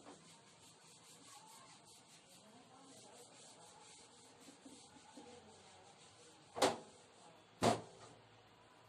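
Faint rubbing of a duster wiping a whiteboard, then two sharp taps about a second apart near the end.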